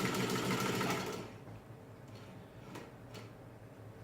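Singer 15-90 sewing machine running steadily as it stitches through two layers of denim, then stopping about a second in. A couple of faint clicks follow.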